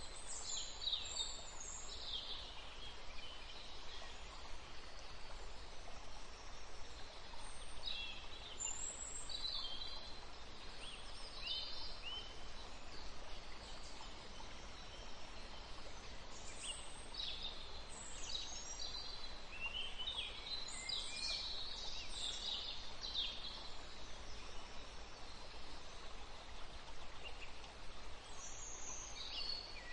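Birds chirping in the background: scattered groups of short, high, falling calls over a faint steady hiss, busiest about a third of the way in and again past the middle.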